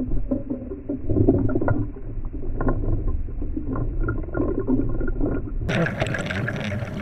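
Muffled, uneven noise of a small fishing boat on the water, with scattered short knocks and no high end. About 5.7 s in, the sound opens up to full brightness.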